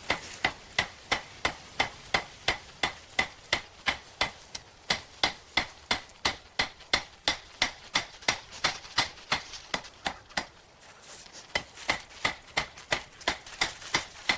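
Hand hammer striking hot rebar on an anvil in a steady run of ringing blows, about two to three a second, drawing the bar out into flat stock. The blows pause for a second or so about ten seconds in, then start again.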